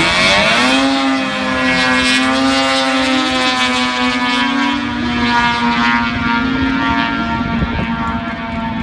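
Drag kart's 600cc Polaris snowmobile engine, driven through a CVT, launching at full throttle. Its note drops in the first second, then holds at one steady high pitch while the kart accelerates away, as a CVT keeps the engine at constant revs. The sound grows duller toward the end as the kart gets far off.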